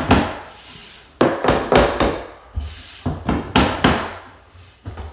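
Claw hammer tapping on a primed finger-jointed wooden door head casing, about ten sharp taps at an uneven pace, some in quick pairs. The taps drive the glued, biscuit-jointed header down tight onto the side casings.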